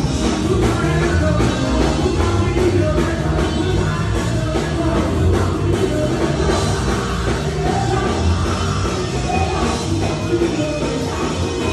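Live rock band playing loud, with drum kit and amplified instruments.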